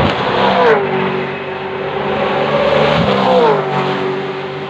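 V8 racing cars running at speed. The engine note drops sharply about half a second in and again past three seconds, then holds steady.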